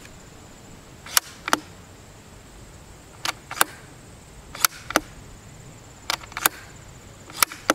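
The bolt of a .308 bolt-action rifle worked open and closed five times. Each cycle is a pair of sharp metallic clacks about a third of a second apart.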